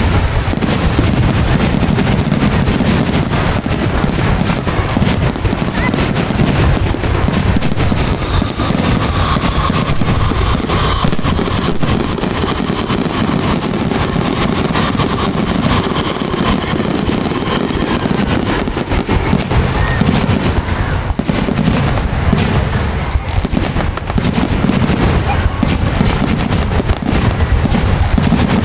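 Fireworks going off in a rapid, continuous barrage: bursting shells and crackle one on top of another, with no gaps.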